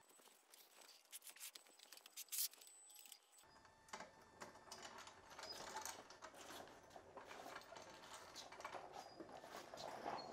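Faint scattered clicks and light metal clinks from a floor jack and the engine on it being handled and shifted; a few sharper clicks early on, then a denser run of small clinks from about three and a half seconds in.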